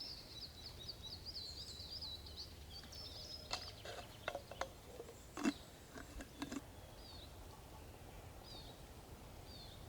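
A small songbird sings a rapid, high trill for the first couple of seconds. A handful of sharp clicks and knocks follow, the loudest about halfway through, and a few faint chirps come after.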